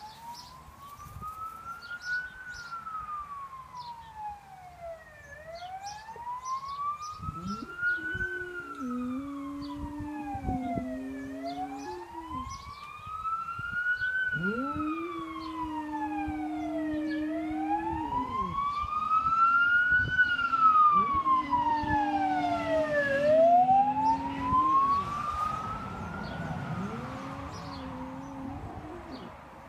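Fire truck wail siren rising and falling slowly, about once every six seconds. From about seven seconds in, a boxer dog howls along with it in long held notes, each lasting several seconds.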